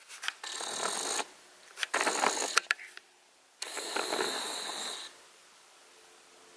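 Handling noise from a hand-held camera being moved about: three bursts of rustling with small clicks, separated by short pauses. From about five seconds in there is only quiet room tone.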